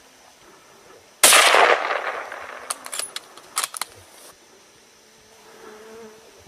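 A single loud gunshot about a second in, fading over about a second, followed by several short sharp clicks.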